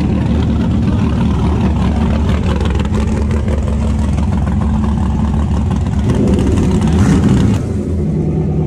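Drag race car's engine running loudly at idle as the car rolls slowly by. About six seconds in the engine is revved, rising in pitch for a second or so, then it drops back to idle.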